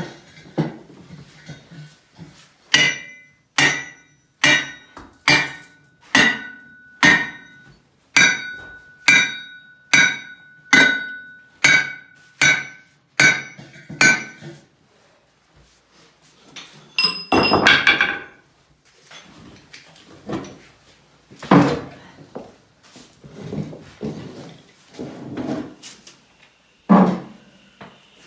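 Sledgehammer striking steel in a foundation pier pit: about fourteen evenly spaced blows a little under a second apart, each with a metallic ring. A brief clattering burst follows, then a few scattered duller knocks.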